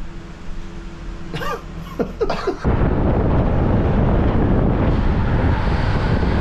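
A few short vocal sounds like coughs or grunts, then, about a third of the way in, a sudden steady rush of wind and road noise from a car driving with its window open.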